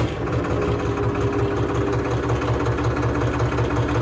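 Tractor diesel engine idling steadily just after starting, with an even low pulsing. It is heard from inside the closed, sound-damped AC cabin, where the engine comes through as very little sound.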